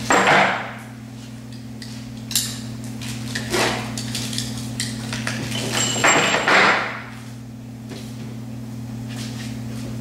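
A plastic bag of axle bolts being handled and opened: several bursts of rustling, the loudest near the start and about six seconds in, with a few sharp clicks of metal parts, over a steady low hum.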